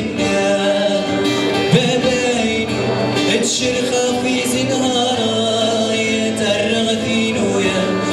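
A male voice singing a melody over a strummed acoustic guitar.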